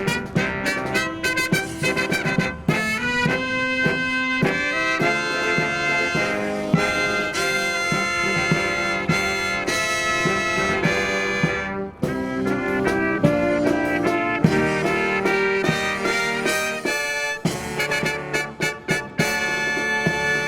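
Live brass marching band playing, with trumpets and trombones carrying the tune over regular drum strokes.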